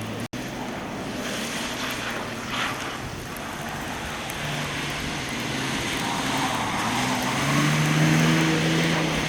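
Ford Sport Trac pickup's engine running over a steady rushing noise of tyres and wind, revving up and getting louder in the last couple of seconds.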